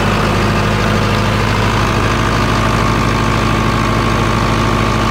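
Four-cylinder diesel engine of a generator set running steadily at an even speed, with its valve tappet clearances freshly set, being run to check that it runs smoothly.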